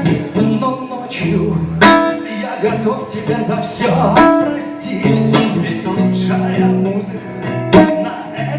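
Acoustic guitar playing a blues accompaniment in strummed chords, with sharp accented strokes about two seconds in and near the end.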